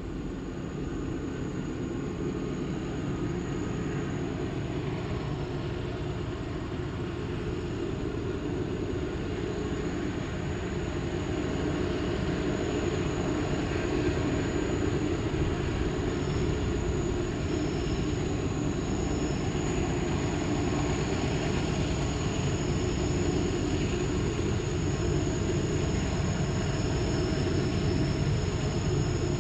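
Norfolk Southern freight train's lead diesel-electric locomotives running as they approach, a steady deep engine rumble that grows slowly louder.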